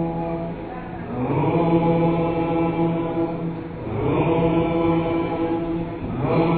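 Deep male dhikr chanting. Each phrase slides up briefly into a long held note lasting about two and a half seconds, with new phrases starting about a second in, about four seconds in and near the end.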